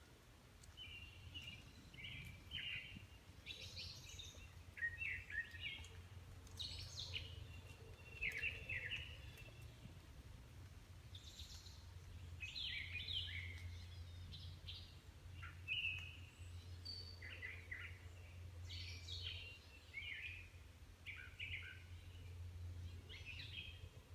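An unidentified songbird calling from high in a tree: a long run of short, quick chirpy notes at irregular intervals, some sliding down in pitch, over a steady low background rumble.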